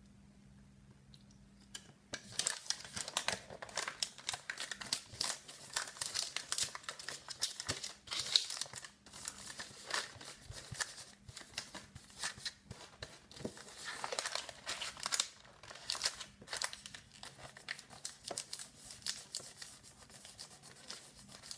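Paper crinkling and rustling as it is folded tightly around a filled pastel, starting about two seconds in and going on in quick, irregular crackles.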